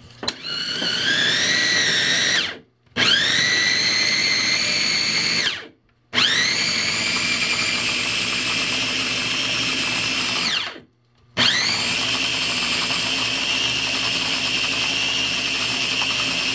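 Small electric food chopper run in four pulses of a few seconds each, with brief silences between them. Its motor whine rises as it spins up and falls away as it stops. It is grinding cooked chicken liver with cream cheese and onion into a pâté.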